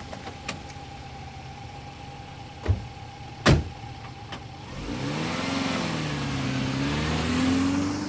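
A Volvo 240 taxi's door being shut with two knocks a little under a second apart, the second the loudest. Then the car's engine revs as the car pulls away, its pitch dipping and rising.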